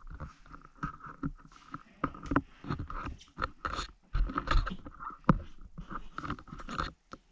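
Irregular knocks, clicks and scraping from hands-on work, with a sharp knock about five seconds in.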